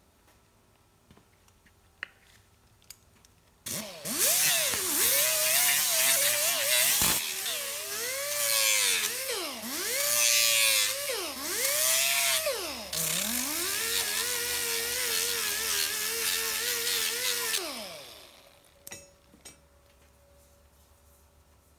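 Pneumatic die grinder with a 3-inch Scotch-Brite pad running with a high whine and air hiss. Its pitch dips and recovers again and again as the pad is pressed onto the casting and eased off. It starts about four seconds in and spins down near the end.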